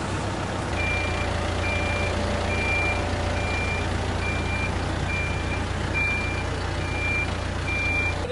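Reversing alarm of a loader machine beeping at an even pace, about one short high beep every 0.7 s, starting just under a second in, over the steady low running of its engine as it backs up.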